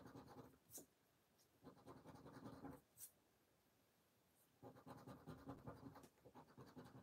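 Faint scratching as the edge of a plastic poker chip rubs the latex coating off a lottery scratch card, in four short bouts of about a second each with pauses between, and a couple of light clicks in the pauses.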